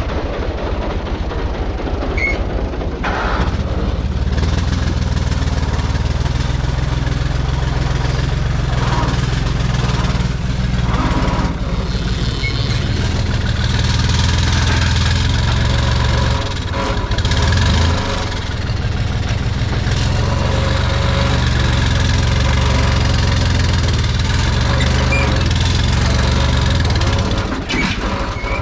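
Farm tractor engine running steadily while working its front loader to fill the trailer with manure; the engine note dips briefly and picks back up about two-thirds of the way through.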